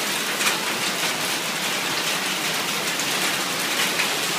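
Hailstorm with heavy rain hitting pavement and surfaces outdoors: a steady dense patter with scattered sharper clicks from hailstones striking.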